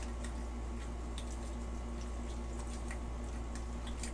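Faint, irregular clicks and squishes of a utensil stirring a tuna mixture in a glass bowl, over a steady low hum.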